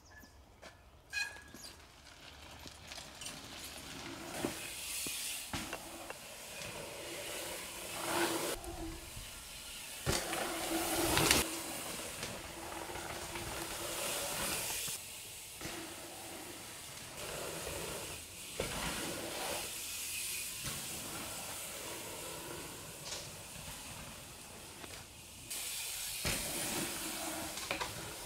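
Rushing wind and tyre noise from a mountain bike rolling down a dirt trail, with a few sharp knocks and an on-and-off low hum. It swells loudest about ten seconds in.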